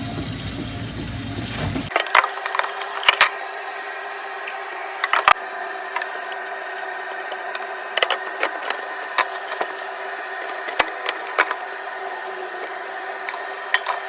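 A steady rushing noise stops abruptly about two seconds in. After it come scattered light clicks and knocks from plastic produce containers and cherries being handled and set into a bin, over a steady hum.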